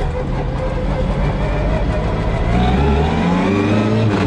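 Classic Mini Cooper S rally car's A-series four-cylinder engine accelerating, its revs rising steadily through the second half. Over it runs the whine of the straight-cut gearbox, rising with the revs.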